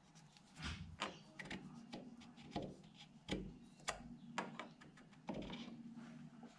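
Faint, irregular light metal clicks and knocks, with a short scrape near the end, as a metal cylinder is worked by hand onto an O-ringed piston held in a lathe chuck.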